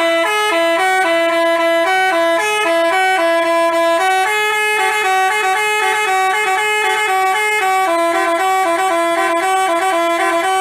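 Telolet basuri multi-tone horn playing a fast melody, loud and unbroken, its notes changing several times a second.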